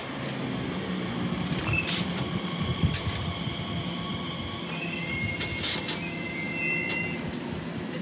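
Train running on the line: a steady rumble of wheels on rails with a few sharp clicks, and a thin high squeal from about five to seven seconds in.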